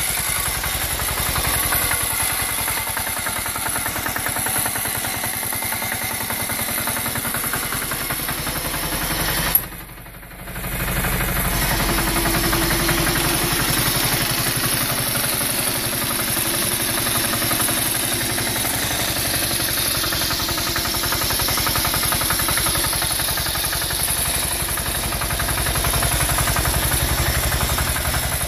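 Small 6 horsepower diesel engine running at idle soon after a cold start at −5 °C, still cold and on too-thick 15W-40 oil, with a steady knocking firing beat. About ten seconds in there is a sharp thump, and the sound drops away for about a second before the engine returns.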